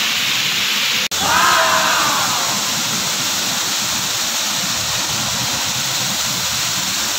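Waterfall pouring, a loud, steady rush of falling water. It breaks off for an instant about a second in, and a few people's voices rise briefly over it just after.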